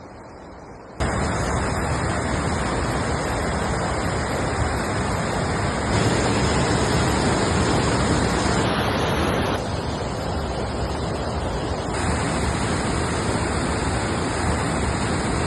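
Waterfall, a steady rush of falling water that starts suddenly about a second in.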